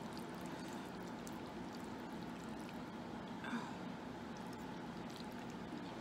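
Quiet room tone: a steady faint hum and hiss, with one brief faint sound about three and a half seconds in.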